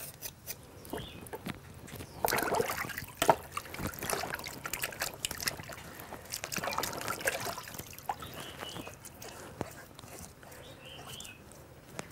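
Water sloshing and splashing in irregular bursts as a singed pig's trotter is scrubbed and rinsed by hand in a plastic basin.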